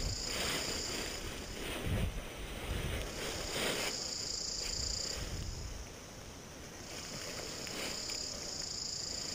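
Paraglider wing fabric and lines rustling as they are handled with gloved hands, with wind buffeting the microphone. A steady high buzz comes and goes three times, each stretch lasting one to two seconds.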